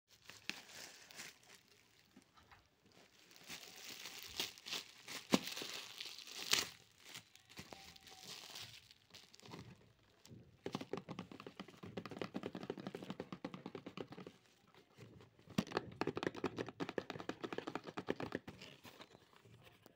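Plastic packaging and a cardboard toy box being handled: crinkling, rustling and tearing, with a few sharp cracks in the first half and long spells of rapid crackling later on.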